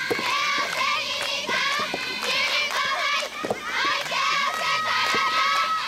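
Many girls' voices chanting cheers in unison in a repeating rhythm, with a few sharp racket hits on the rubber soft-tennis ball: a serve near the start and another stroke about three and a half seconds in.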